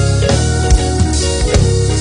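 Gospel band playing: drum kit with kick and snare hits on a steady beat, electric guitar and bass holding chords.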